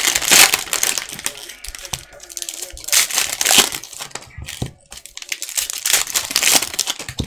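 Cellophane wrapper of a Panini Prizm basketball cello pack being torn open and crinkled by hand, in repeated loud bursts of crackling.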